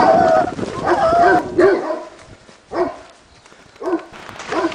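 A dog barking and yelping in short calls spaced about a second apart, with a longer held call at the start.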